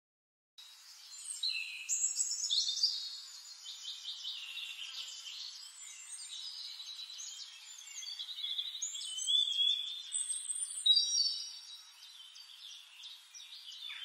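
A chorus of several songbirds singing over one another: clear whistled notes, sliding calls and rapid trills, loudest about two seconds in and again around ten seconds in.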